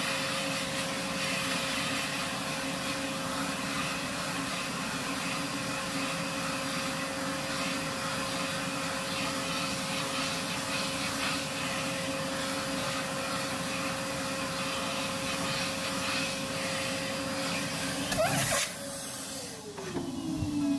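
Barber's ceiling-mounted hair-suction machine, a vacuum drawing cut hair up a hose through a brush nozzle, runs steadily with a rushing sound and a steady whine. Near the end it is switched off, and its whine falls in pitch as the motor winds down.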